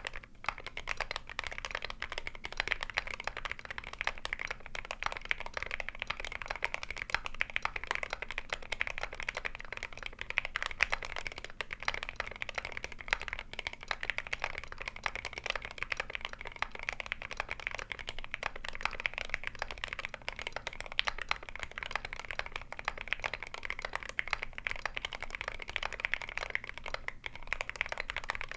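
Continuous rapid typing on a GMMK Pro mechanical keyboard fitted with lubed Akko Jelly Black linear switches, a brass plate, a tape mod and MSA keycaps: a dense, even clatter of keystrokes with no pauses.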